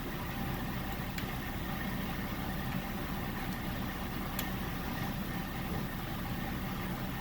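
A steady low hum, with a few faint sharp clicks of a lock pick working the pins of an S-Tech euro profile cylinder.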